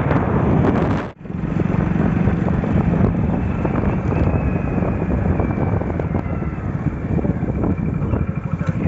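Heavy diesel machinery engine running steadily, with wind noise on the microphone during the first second before a sudden break.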